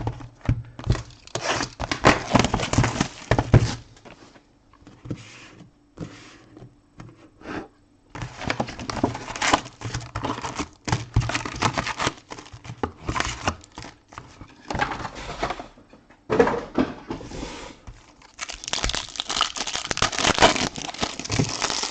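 Crinkling and tearing of wrapping as a box of trading card packs is unwrapped and the packs torn open, in several bouts with short pauses between, plus light knocks and clicks.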